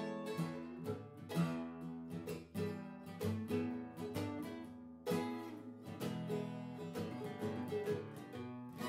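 Background music on plucked acoustic guitar, a run of picked notes ringing one after another.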